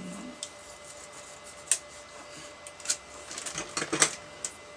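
A roll of white adhesive tape being pulled out and handled: scattered sharp crackles and clicks, thickening into a quick cluster about three to four seconds in.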